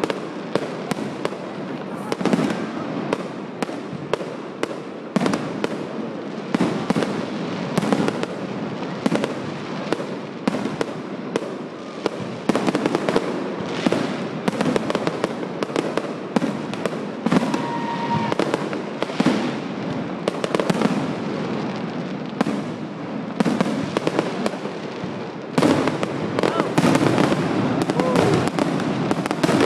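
Fireworks display: aerial shells bursting in quick succession, a continuous string of sharp bangs and crackles, getting denser and louder for the last few seconds.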